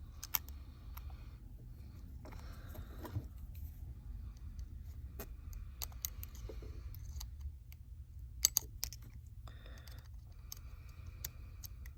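Scattered small clicks and taps of repair tools against a Samsung Galaxy S8+'s frame and internal parts while its logic board is being freed, with a quick cluster of clicks a little past the middle. A steady low hum runs underneath.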